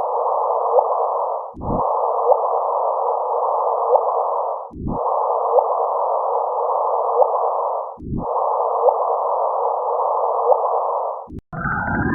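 Sonified spacecraft radio data: a steady electronic hiss with short rising chirps about every 0.8 s. It repeats as a loop of roughly three seconds, broken by a brief low thump at each restart, and switches to a different, denser sound near the end.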